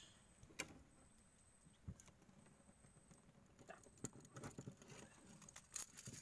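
Faint, scattered light knocks and clicks on a boat deck, one sharper click under a second in and a low thump about two seconds in, with a denser run of knocks in the second half.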